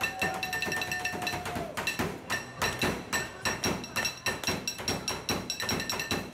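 A restaurant waiter drumming a fast show rhythm with metal tools: rapid metallic clanks, several a second, each leaving a bright metal ring. A steady held note sounds over the first second and a half.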